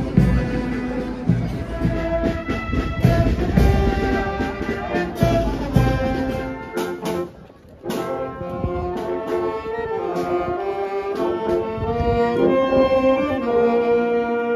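Brass band playing, with heavy drum beats under the brass for the first six seconds or so. After a short break about seven seconds in, the band plays held brass chords.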